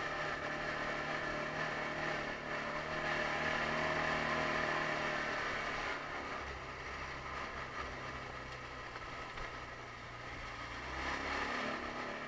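Taotao 150cc ATV's single-cylinder four-stroke engine running while the quad rides along a trail. The engine note climbs and is loudest a few seconds in, drops back about halfway through, and picks up again near the end.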